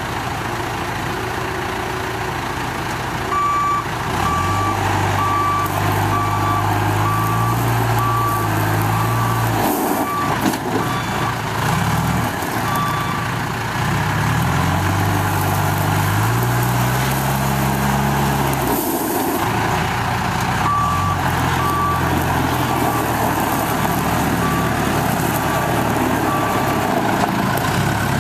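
John Deere 310G backhoe's 4045 diesel engine running, its pitch rising and falling several times as the machine works. Twice a backup alarm beeps steadily for several seconds while it reverses.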